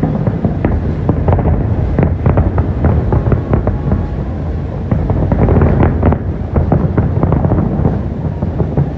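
Fireworks display: a rapid, continuous barrage of bangs and crackles over a steady low rumble, denser and louder around the middle.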